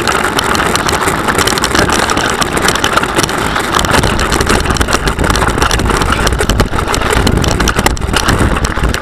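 Bike rolling fast over a rough trail while pulled by dogs: continuous tyre and wind noise with rattling clicks and knocks from the bike. The low rumble grows stronger about four seconds in.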